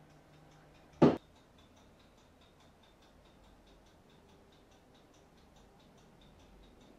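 Steady, faint, quick ticking, several ticks a second. About a second in there is a single short, loud knock.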